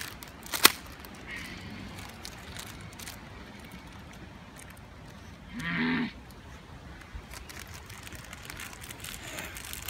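Plastic sweet packet being pulled and worked at by hand, crinkling, with a sharp crackle about half a second in. About six seconds in, a short groan of about half a second.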